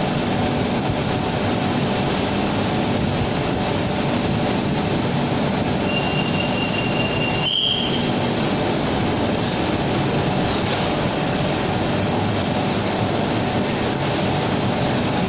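Bangkok BTS Skytrain train standing at the platform, its equipment giving off a steady hum. A thin high warning tone starts about six seconds in and ends in a short, louder, slightly higher beep about a second and a half later, ahead of the doors closing.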